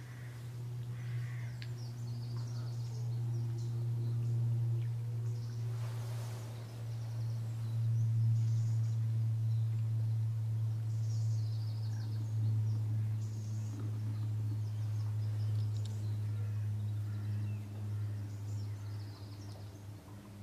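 A steady low hum, the loudest sound throughout, under faint high bird chirps now and then and a brief rustle about six seconds in.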